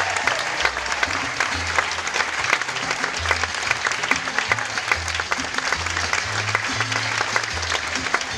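Audience applauding over background music with a bass line.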